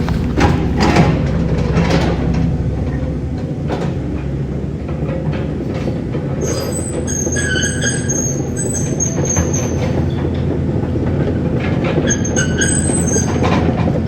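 Heavy construction machine's diesel engine running steadily, with clanks and, from about halfway on, high-pitched metallic squeals that come and go.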